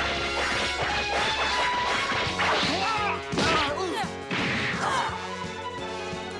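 Animated fight soundtrack: dramatic background music under a rapid series of punch, crash and whoosh sound effects.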